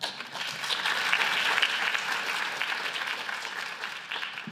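An audience applauding. The clapping starts all at once, is fullest in the first couple of seconds and then slowly dies away.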